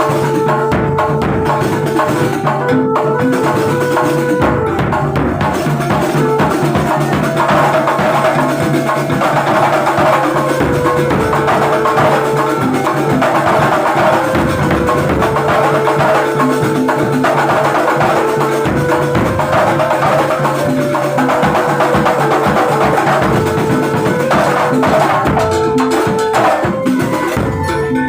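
A kuntulan ensemble playing: busy hand-drum and percussion rhythms under steady, repeated pitched tones.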